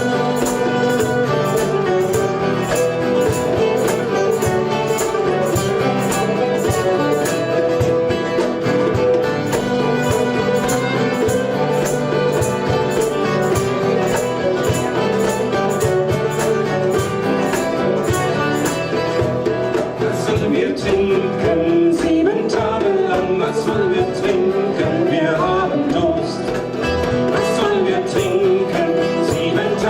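Folk song played by instruments over a steady beat, with a singing voice coming in about two-thirds of the way through.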